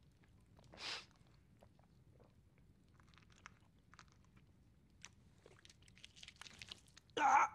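A man eating: faint small crunches and mouth clicks as he chews. Near the end comes a sudden loud cough as he chokes on the food.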